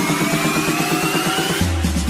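Electronic dance music with a fast beat: a rising synth sweep builds and then gives way to a heavy bass drop near the end.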